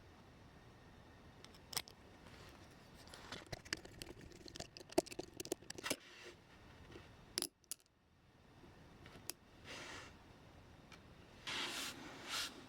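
Small metal parts of a Märklin model locomotive clicking and clinking as they are handled on a hard surface: a scatter of light taps and clicks, then a couple of short scraping or rustling sounds near the end.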